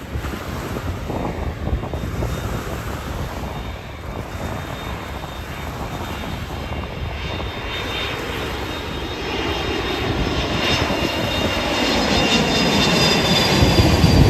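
Twin-engine jet airliner on final approach with its landing gear down, its engines growing steadily louder as it comes low overhead. High whining tones join the rumble about eight seconds in and are loudest near the end.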